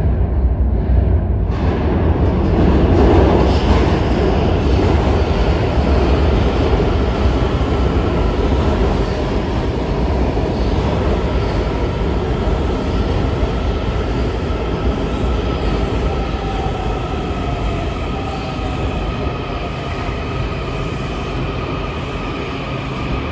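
Washington Metro train rumbling into an underground station and slowing to a stop, loudest a few seconds in and easing off. High whining tones come in as it slows, one of them falling in pitch.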